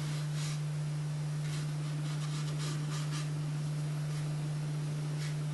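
A steady low hum throughout, with a few faint, short scratchy strokes of a brush on watercolour paper.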